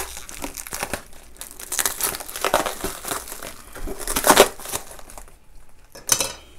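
Plastic mailer bag crinkling and rustling in irregular bursts as a cardboard kit box is worked out of it, with louder crinkles about two and a half and four seconds in and a short quiet spell near the end.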